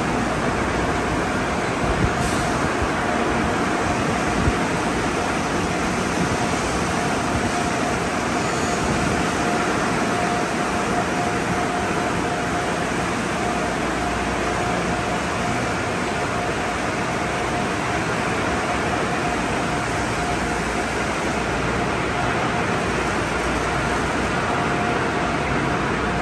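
Sonny's conveyor car wash tunnel running: spinning friction brushes scrubbing a car amid water spray, a loud, steady rush of noise with a steady high whine throughout. A couple of short knocks about two and four and a half seconds in.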